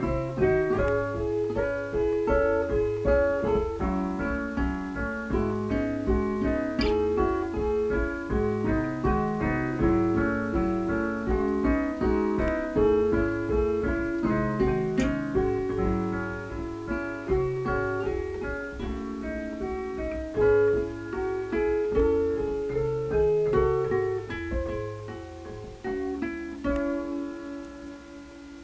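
Instrumental music with piano and plucked guitar, a busy run of notes that fades out over the last few seconds.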